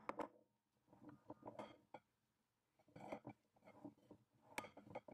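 A sharp light knock at the start as the flour bowl meets the rim of the glass mixing bowl. Then a bare hand mixing flour into wet yeast dough in the glass bowl, in soft, uneven bursts of rubbing and squelching with small knocks against the glass.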